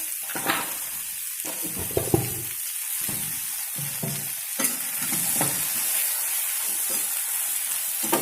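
Halved okra sizzling in hot oil and spiced onion masala in a kadhai, stirred with a spoon that scrapes against the pan several times, as the salt is mixed in.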